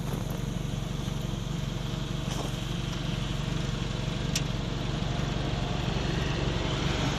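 Chevrolet Cruze 1.8 four-cylinder petrol engine idling steadily, heard at the exhaust tailpipe, running again after repair of a misfiring third cylinder.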